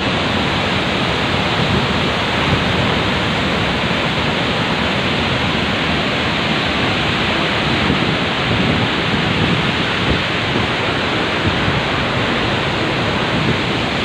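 A waterfall in full flood, muddy water pouring down and rushing past: a loud, steady rush of water with no let-up.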